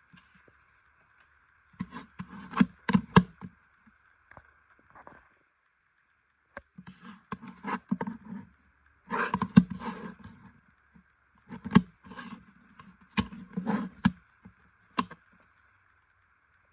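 A CD and its packaging being handled: spells of rustling and scraping with sharp plastic clicks, four or five bursts with short pauses between, over a faint steady hiss.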